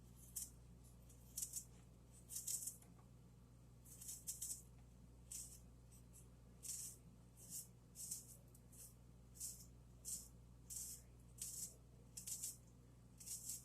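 Faint, short scraping strokes of a spoon in a bowl as chopped onion is worked into chicken salad. The strokes are irregular at first, then settle to about three every two seconds.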